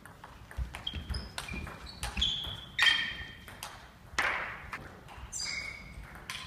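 Celluloid-type table tennis ball clicking off bats and the table in a fast doubles rally, an irregular string of sharp ticks. A few short high squeaks come in between.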